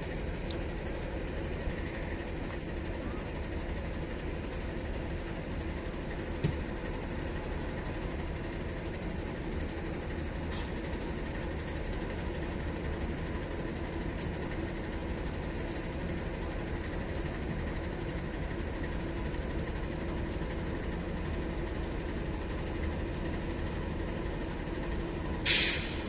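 Steady engine and road noise inside a city bus under way, with a single knock about six seconds in. Near the end comes a short, sharp hiss of air, typical of the bus's air brakes.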